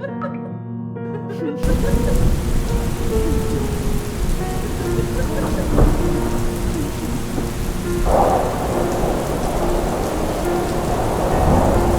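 Thunderstorm sound effect: heavy rain with thunder rumbles, cutting in suddenly about a second and a half in, with music's held notes continuing underneath.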